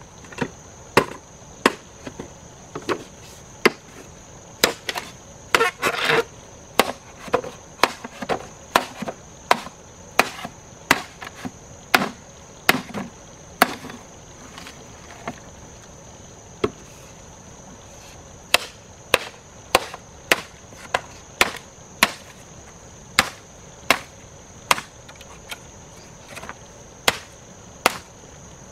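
Axe chopping wood: a long run of sharp blows, roughly one a second, with a lull of a few seconds about halfway. A steady high-pitched hum runs underneath.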